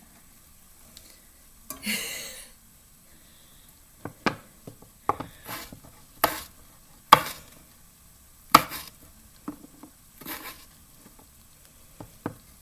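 Irregular knocks and clinks of kitchen utensils and dishes while potatoes are being prepared. There are two brief scraping rustles, one about two seconds in and one about ten seconds in.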